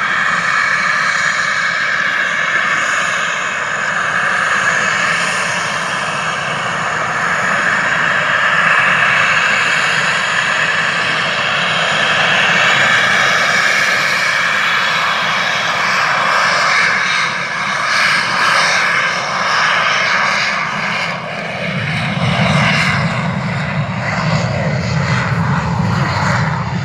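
PZL TS-11 Iskra jet trainer's single turbojet engine at takeoff power: a loud, steady whine with a rumble beneath it as the jet runs down the runway. A deeper, heavier rumble comes in near the end.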